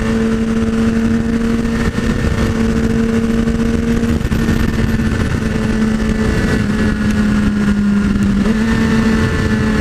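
Sport motorcycle's inline-four engine cruising at steady revs, with wind rushing over the microphone. The engine note sags a little about seven seconds in and picks back up a second or so later.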